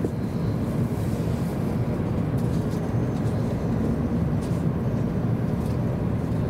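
Steady low rumble of a Hokuriku Shinkansen train heard from inside the passenger cabin as it rolls slowly along the station platform.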